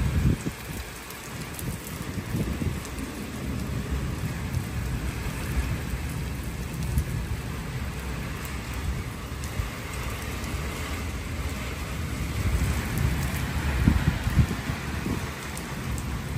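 Steady rain falling on a paved courtyard and trees, with low rumbles of thunder coming and going, loudest at the start and again about fourteen seconds in.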